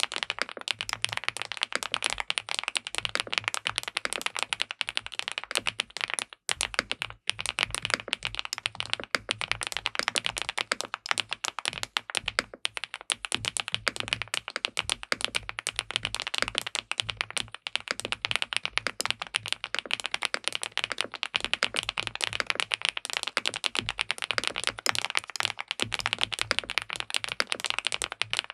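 Continuous fast typing on an SPM PL87W tenkeyless mechanical keyboard with linear switches: a dense stream of keystroke clacks. Typing pauses briefly about six and a half seconds in, then resumes.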